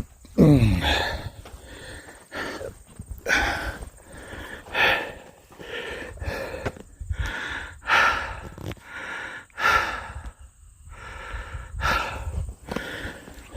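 A man breathing hard, with loud breaths in and out every second or two, winded from hiking uphill. Near the start there is a falling groaning sigh.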